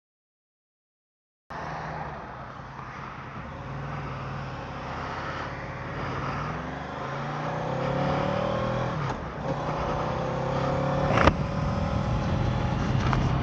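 Honda VFR800 motorcycle's V4 engine running on the move, coming in after about a second and a half of silence; its pitch rises as it pulls, dips about halfway through and climbs again, over a haze of wind and road noise. A short sharp click sounds near the end.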